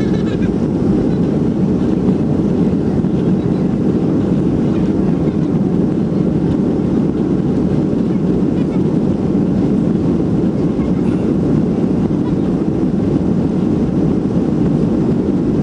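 Boeing 737-300 cabin noise on the runway for takeoff: the engines and the wheels rolling on the runway make a steady, loud, low rumble.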